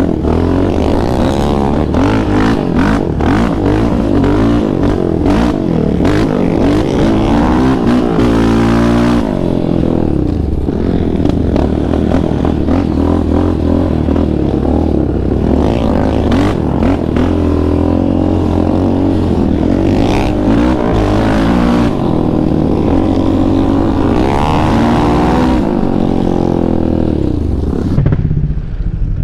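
Yamaha Raptor 700R's single-cylinder four-stroke engine, through an aftermarket Monster exhaust, running hard as the quad is ridden: the engine note climbs and drops repeatedly as the throttle is worked and gears change.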